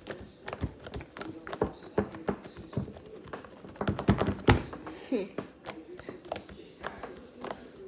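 Fingers pressing and poking into a flat sheet of thick slime, squeezing out trapped air with many small sharp pops, several a second and irregular, with a quick cluster about four seconds in. It is a slime 'pop test', where plenty of pops marks a good slime.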